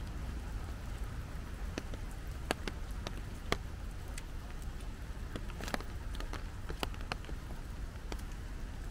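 Steady rain hiss with irregular sharp ticks of drops striking nearby surfaces, under a low rumble.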